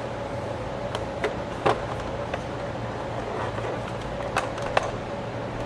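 Scattered light clicks and knocks from the plastic housing of a slide projector being handled and taken apart, with the sharpest knock about two seconds in and a couple more near the end. A steady low hum runs underneath.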